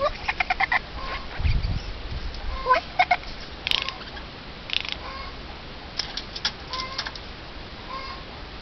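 Eurasian jay giving soft clucking, chattering calls in short runs: a quick string of about eight notes at the start, then shorter clusters every second or two.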